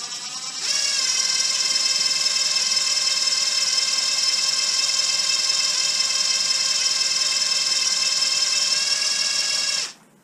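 Cordless drill spinning the hydrostatic drive unit of a Honda HRX537 mower to circulate fresh oil through its pump during a flush fill. It makes a steady high whine, speeds up from a slower, wavering run under a second in, and stops suddenly just before the end.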